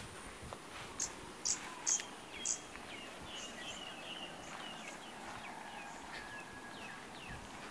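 Birds calling: four short, high chirps about half a second apart, then a run of quick falling chirps.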